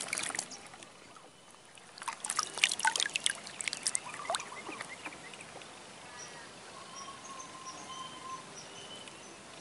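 Water trickling and dripping in small splashes, densest about two to three and a half seconds in. Thin high bird chirps follow from about six seconds on.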